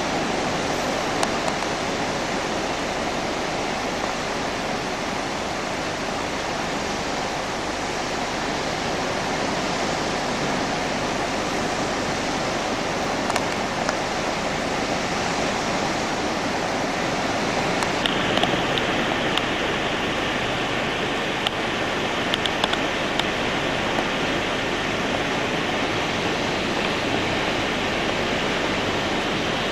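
Steady rushing noise of sea surf and wind on the shore, with no engine heard. A few faint clicks come about two-thirds of the way through.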